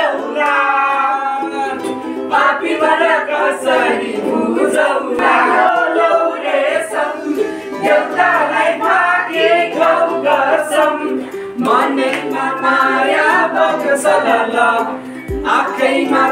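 A group of young people singing together, with a ukulele strummed along.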